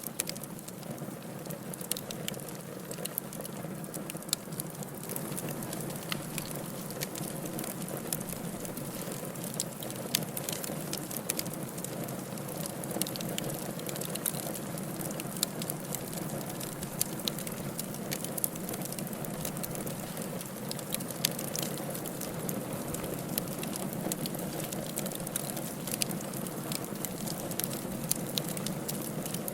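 Firewood burning in a fireplace: a steady low rush of flame with frequent sharp crackles and pops, several a second, scattered irregularly throughout.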